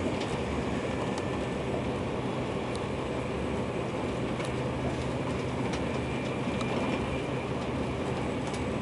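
Steady rumble and rush of a TGV high-speed train at about 280 km/h, heard from inside the passenger car, with a few faint ticks.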